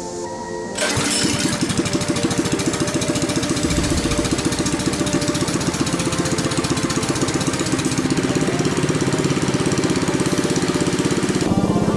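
Motorized drift trike's engine running hard, starting abruptly about a second in as a rapid, even pulsing that stays loud until near the end.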